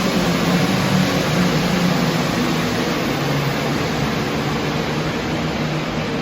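Heavy engine running loud and steady under a dense roar of noise, its pitch wavering slightly.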